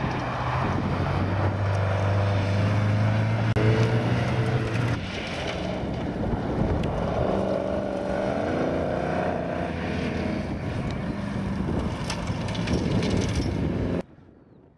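Classic rally car engines running hard on a gravel stage. First comes a steady engine note for about five seconds, then another car revving up and down with its pitch rising and falling. The sound drops away abruptly near the end.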